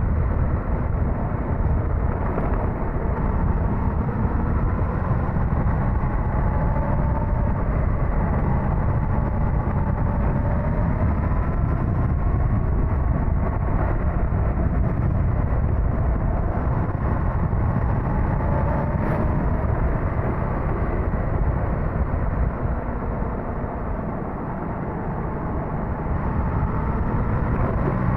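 Suzuki GSX-S1000GT's inline-four engine running on the move, its pitch rising and falling with the throttle, under heavy wind rush on the microphone. Near the end it eases off briefly before picking up again.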